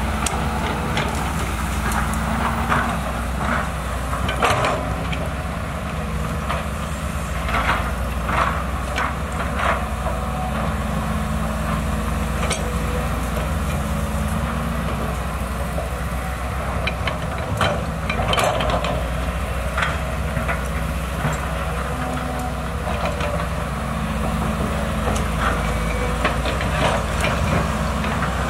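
Volvo EC210BLC excavator's six-cylinder diesel engine running steadily while the machine digs, with scattered sharp knocks and cracks from the bucket working the ground.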